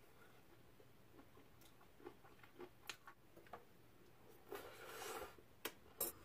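Faint mouth sounds of someone chewing a fried dureup (angelica-tree shoot) pancake, with a few soft clicks. There is a short rustling stretch just past halfway and two sharp clicks near the end.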